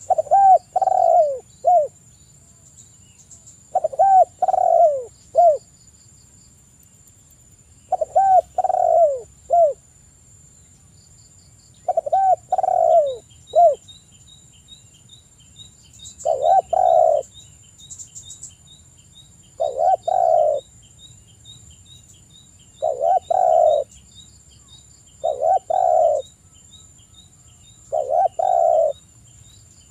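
Spotted dove (tekukur) cooing: a phrase of a few low coo notes repeated every three to four seconds, the phrases getting shorter and closer together about halfway through.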